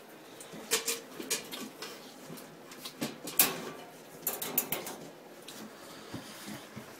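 Groups of sharp metallic clinks and knocks from steel food bowls and a wire dog crate as a dog eats and the crate is handled. They come about a second in, again around three seconds (the loudest), and around four and a half seconds.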